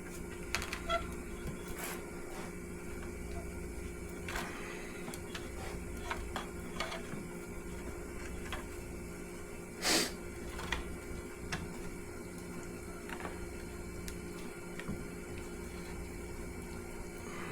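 Soft scattered crinkles, clicks and rustles of gloved hands winding a wet fiberglass repair wrap around a plastic pole, with one louder rustle about ten seconds in, over a steady low hum.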